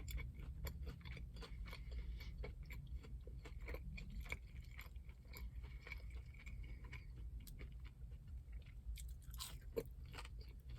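A person chewing McDonald's fast food close to the microphone: soft, irregular mouth clicks and smacks, with one sharper click near the end.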